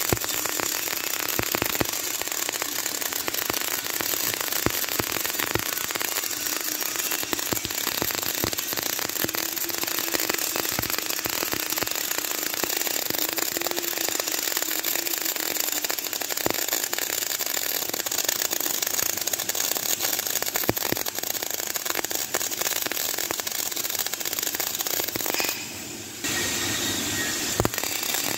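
Electric arc welding: the arc crackling and sizzling steadily, with a brief stop of about half a second near the end before it strikes again.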